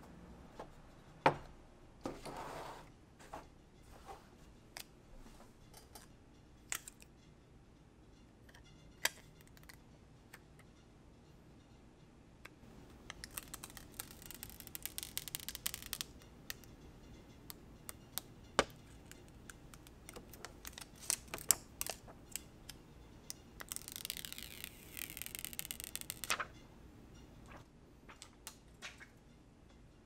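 Hands handling a new iPhone Xs and its packaging: scattered sharp clicks and taps, with two stretches of rustling a few seconds long, one around the middle and one past three-quarters of the way.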